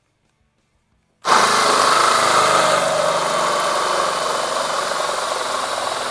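Ryobi cordless drill spinning a 1¾-inch hole saw through a molded plastic car interior trim panel, starting about a second in and cutting steadily.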